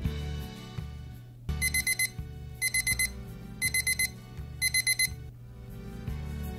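Casio DBA-80 Data Bank watch's countdown-timer alarm going off as the timer reaches zero: four bursts of rapid high beeps, about one burst a second, starting about a second and a half in and stopping near the end. Background music plays underneath.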